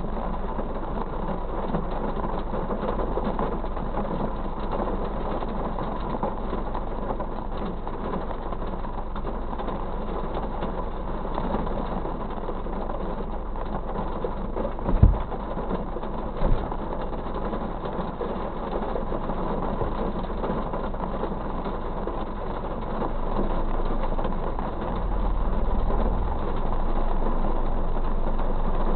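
Steady rain on a parked car, heard from inside the cabin as an even hiss over a low hum, with two dull thumps about halfway through. It grows a little louder near the end.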